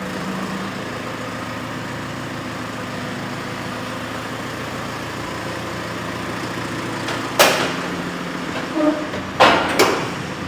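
Heavy diesel truck engine running steadily, with three short, sharp, loud bursts of noise near the end.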